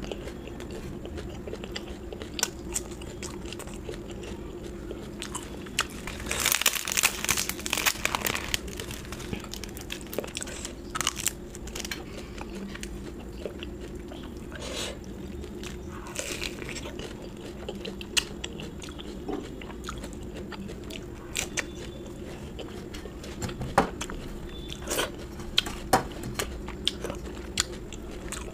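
Close-miked eating: chewing with small wet clicks, and a run of crunchy bites about six to eight seconds in.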